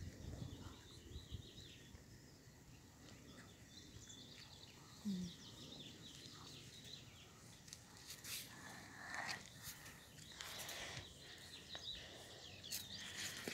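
Quiet outdoor ambience with faint bird chirps, and a few rustles and knocks in the second half.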